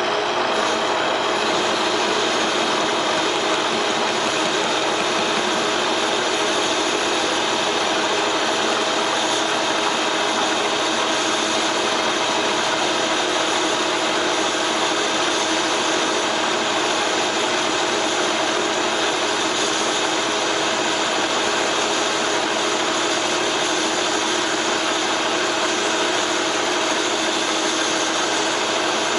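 Metal lathe running steadily with a steady gear whine at several pitches, while a carbide tool is hand-fed across the face of a large flat belt pulley held in the chuck.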